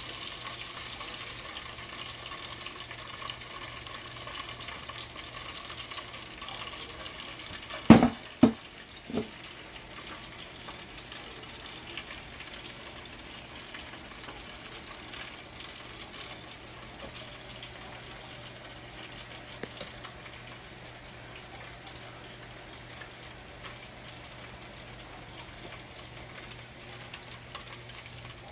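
Oil frying steadily in an electric deep fryer, a continuous sizzling hiss. About eight seconds in come three sharp knocks within about a second of each other.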